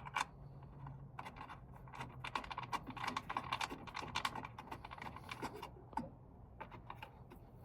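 A fast, irregular run of small metallic clicks and ticks from bolts being threaded by hand into T-nuts on an aluminum drip rail. The clicks are densest in the middle and thin out near the end.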